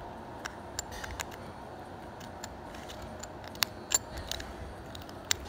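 Small, irregular metallic clicks and ticks as a stainless steel screw-on caseback is fitted and turned by hand on a Casio Edifice watch case. The two loudest come close together a little past halfway. A faint steady hiss runs underneath.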